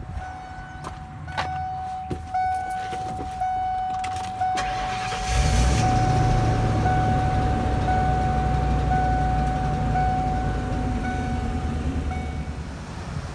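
A dashboard warning chime dings repeatedly while a few clicks sound. About four and a half seconds in, the 2002 Ford E-350's 5.4-litre gasoline V8 cranks, catches and settles into a steady idle, with the chime still going over it.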